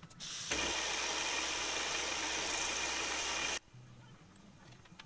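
Vertical milling machine taking a finishing cut on an aluminium workpiece: the cutter's hiss mixed with the spray of a coolant mist, over a steady low machine hum. It starts about half a second in and cuts off abruptly after about three seconds.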